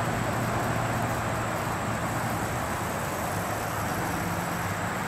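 Nelson traveling 'tractor' sprinkler running: a steady hiss of water spraying from its rotating arms, with a steady low hum underneath.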